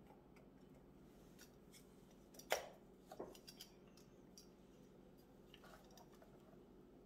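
Hands handling a GoPro Hero 9 Black camera and its battery: one sharp click about two and a half seconds in, a softer click just after, then a few faint ticks over low room tone.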